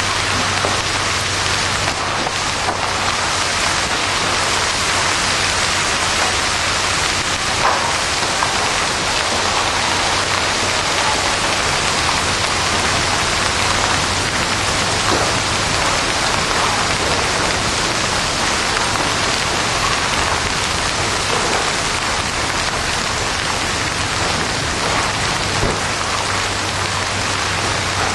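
Heavy rain mixed with hail falling on pavement: a steady downpour hiss with a few sharper single hits.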